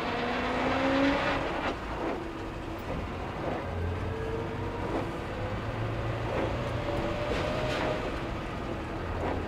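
1966 Morris Minor's 1098 cc A-series four-cylinder engine running on the move, its pitch rising as it pulls away and dropping back several times.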